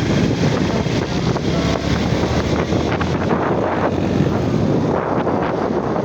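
Wind buffeting the microphone over a steady rumble.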